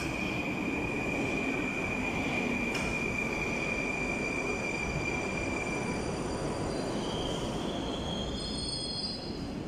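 Electric metro train standing at a station platform, with a steady high electrical whine over a low rumble; about seven seconds in, the whine gives way to several higher whining tones that rise in pitch.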